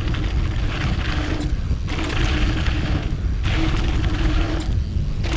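Mountain bike riding fast down a dirt jump trail, with tyre hiss on the dirt and heavy wind rumble on the helmet camera's microphone. The tyre hiss drops out briefly three times, as the wheels leave the ground over jumps.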